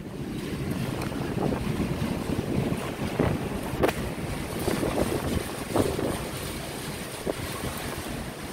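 Storm wind gusting across the microphone on an open ship's balcony: a steady rushing noise with low rumbling buffets, the wash of the rough sea beneath it. One sharp tap about four seconds in.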